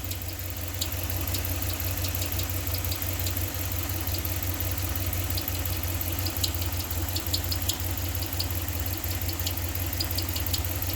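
5.7 Hemi V8 in a 2015 Ram 1500 idling with the accessory belt off: a steady low running sound with short, irregular high-pitched ticks over it. The noise comes from inside the engine, which the mechanic suspects is a valve, a lifter or the camshaft.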